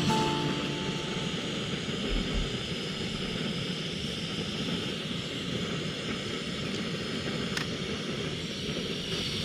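Backpacking stove burner running steadily with an even hiss under a pot of water being heated, the water just starting to form small bubbles. One light click about three-quarters of the way through.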